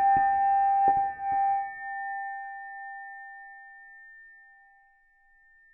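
A struck metallic ring, one steady bell-like tone with a few higher overtones, dying away over about four and a half seconds. A few light clicks come in the first second and a half.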